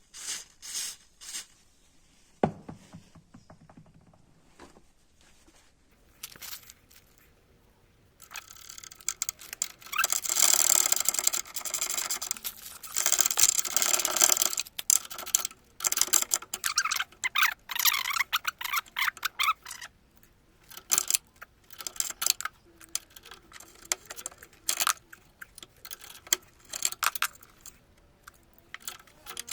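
Two long hisses of an aerosol penetrating-oil spray, then a run of scratchy scrubbing strokes and small metallic clicks as a steel nut is cleaned and handled.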